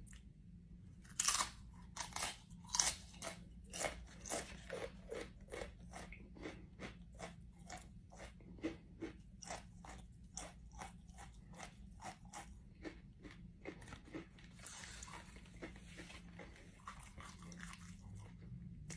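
A person biting into and chewing a crunchy One Chip Challenge tortilla chip close to the microphone: a steady run of crunches, about two to three a second, loudest at the first bites and growing softer as the chewing goes on.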